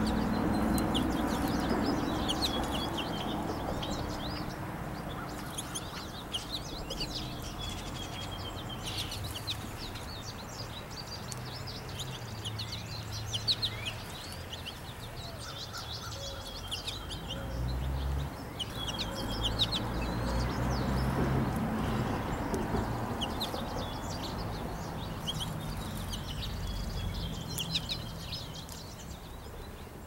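Small songbirds chirping and twittering in short, scattered calls, over a steady low rumble.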